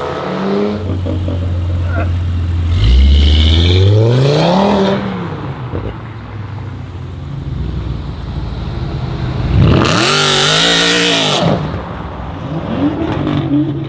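Audi RS3's five-cylinder engine through a full Armytrix exhaust, revving and accelerating. The revs climb about three seconds in and fall away, a loud hard acceleration comes about ten seconds in, and a shorter rise in revs follows near the end.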